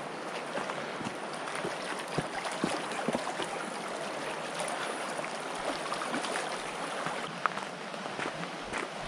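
Small waves lapping on a rocky pond shore: a steady wash of water with faint light splashes.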